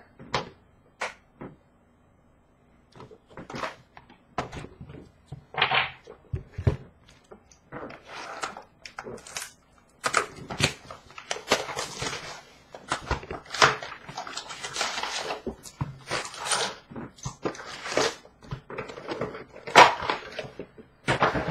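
Trading cards and their pack wrappers being handled: scattered clicks and taps, then a denser stretch of rustling and crinkling from about ten seconds in.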